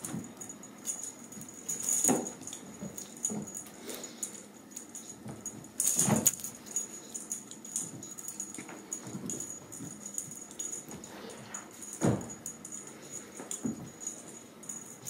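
Ragdoll kittens scampering, wrestling and pouncing on a rug: soft scuffling and patting, with three louder thumps spread through.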